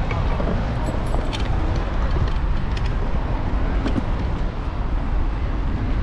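Steady wind and road rumble on a camera mounted to the handlebars of a moving electric scooter, amid city street traffic, with a few light clicks or rattles.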